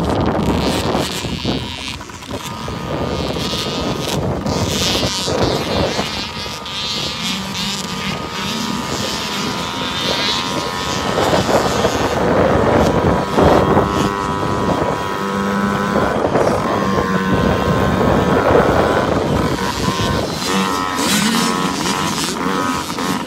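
Several 65cc two-stroke youth motocross bikes racing on a dirt track, their engines revving up and down as they ride past.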